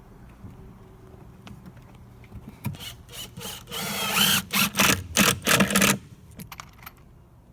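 Power drill driving 2-inch deck screws into new wooden deck boards, in several short whirring bursts about three to six seconds in.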